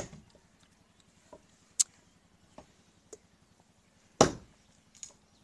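Sharp knocks at irregular intervals: two loud ones, one at the start and one about four seconds in, each with a short ringing tail, and a handful of fainter ticks between them.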